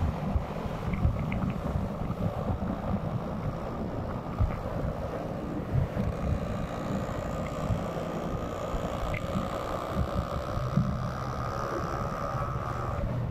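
Yamaha R6 sport bike's inline-four engine running steadily through its Akrapovic exhaust, mixed with wind rumble on the microphone.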